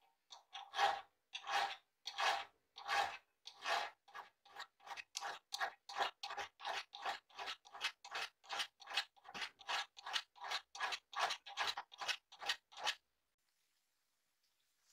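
Hand file rasping back and forth across a steel hammer head held in a vise, one stroke after another. The strokes quicken to about two a second after a few seconds, then stop near the end.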